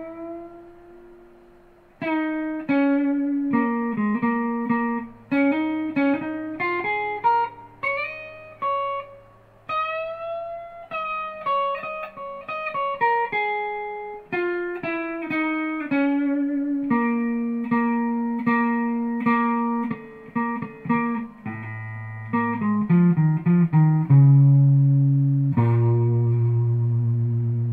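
Unaccompanied electric guitar, an Epiphone, played clean in single-note melodic lines with a few notes bent upward. Near the end it runs quickly down to low, held notes.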